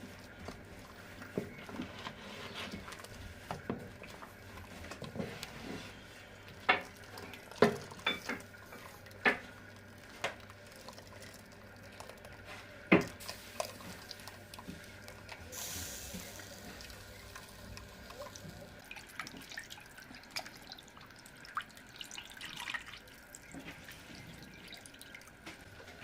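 Water dripping and splashing, with scattered sharp knocks and clinks and a brief hiss about two-thirds of the way through.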